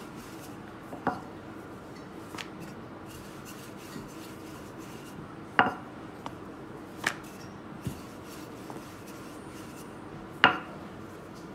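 Wooden rolling pin rolling out dough on a granite countertop: a soft rubbing with several sharp knocks as the pin strikes the stone, the loudest near the end.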